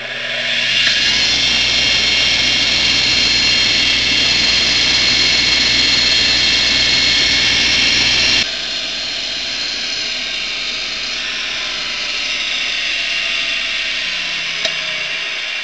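Bench grinder running with a brush wheel, taking the rough edges off a nail ground into a lock pick: a steady high whine over a rushing hiss. The sound drops suddenly in level about eight seconds in.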